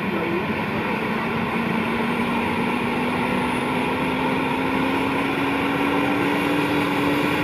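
Helicopter running on the ground: a steady whine that climbs slowly in pitch over the rotor and engine noise.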